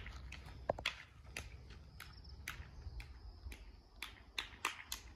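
Footsteps of foam clogs on a dry dirt path, a crunch or scuff about twice a second, over a steady low rumble.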